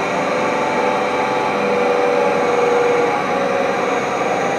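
Heavy-duty welding positioner's table rotation drive running steadily: an inverter-driven electric motor and gear reducers turning the big table, a steady hum and whine with a few held tones.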